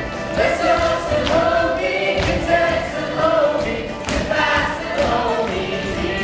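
Cast of a stage musical singing together in chorus over musical accompaniment, with a few thuds from feet on the stage.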